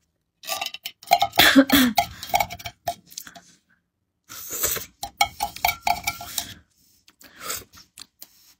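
A metal food can handled in the hands, giving a string of light clicks, knocks and clinks, with a short burst of hiss about four and a half seconds in. A woman gives a short cough about a second and a half in.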